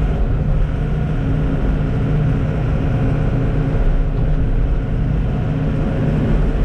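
Heavy diesel engine running steadily at an even speed, a constant low drone.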